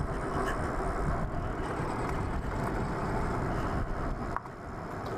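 Steady rush of wind on the microphone and tyre noise while riding a Super73 S2 electric bike, dipping briefly near the end.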